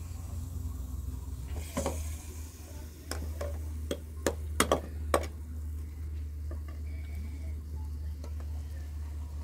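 Metal ladle stirring chopped onions frying in oil in a metal pan, with a cluster of sharp knocks and scrapes against the pan from about two to five seconds in, over a steady low hum.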